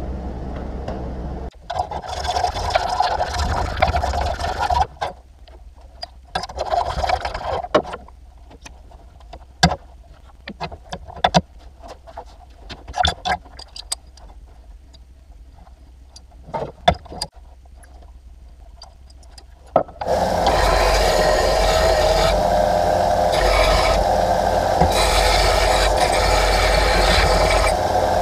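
Metal parts being rubbed and scraped, then handled with scattered clicks and knocks. About 20 seconds in, a bench belt sander starts and runs steadily, grinding a flat metal piece held against the belt.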